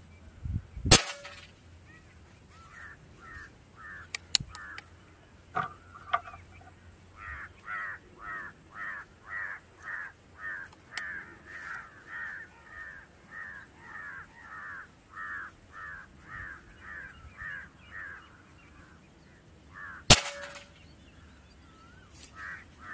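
Two sharp shots from a .177 air rifle, about a second in and again near the end, with a few light clicks after the first. Between them a bird calls over and over, about twice a second, for around ten seconds.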